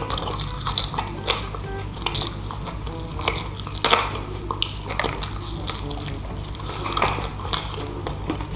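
Fried chicken being eaten close to the microphone: chewing, lip smacks and finger-sucking with irregular sharp crunching clicks, the loudest about four seconds in.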